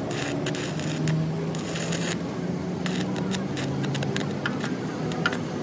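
An engine running at a steady speed, with scattered clicks and scrapes over it.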